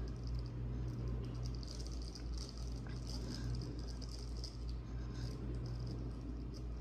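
Chip packet crinkling and rustling in irregular bursts as gloved hands handle and fold it, over a steady low hum.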